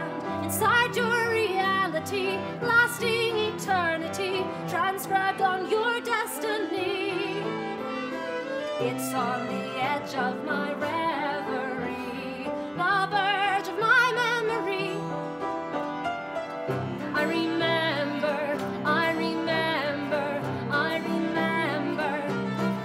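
Live acoustic ensemble music: upright piano, violin, cello and acoustic guitar playing a slow song, with a violin melody wavering in vibrato over sustained low cello notes.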